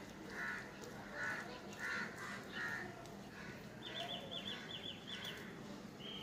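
Birds calling: four short calls about 0.7 s apart, then a quick run of high, rapidly repeated chirps a little after the middle.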